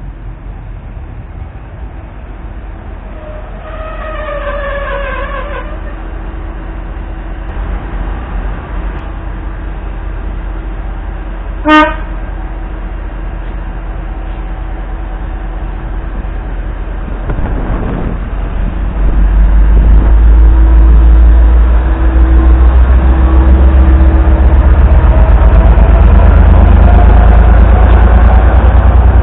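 EMD-engined N class diesel-electric locomotive: one short, sharp horn toot about twelve seconds in, after a drawn-out falling tone a few seconds earlier. From about two-thirds of the way through, the locomotive's diesel engine rumbles loudly as it draws alongside and passes, with a slowly rising whine over it near the end.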